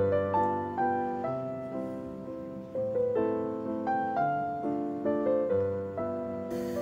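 Background piano music: a gentle melody of struck notes, each fading away, over sustained low bass notes.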